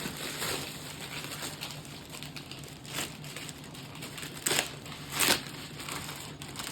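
Packaging crinkling and rustling as a boxed camera carry case is handled, with a few louder crinkles about halfway through and again near the end.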